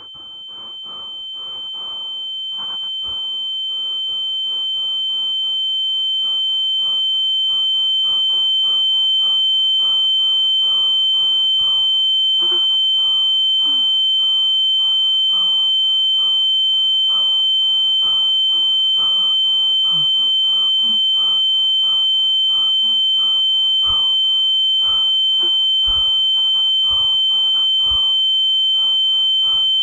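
Ear-ringing (tinnitus) sound effect: one steady high-pitched tone that swells over the first several seconds and then holds, over a busy crackle.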